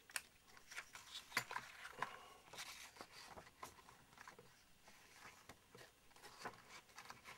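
Faint rustling and small scattered clicks of a sheet of card and tape being handled and pressed against a scale model jet.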